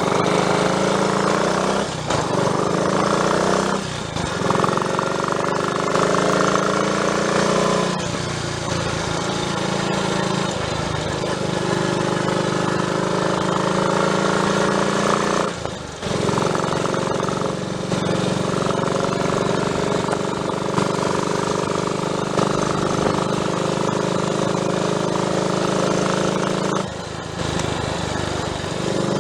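Triumph Tiger Cub's single-cylinder four-stroke engine under way on the road. Its pitch climbs, breaks off briefly at each gear change, and climbs again several times.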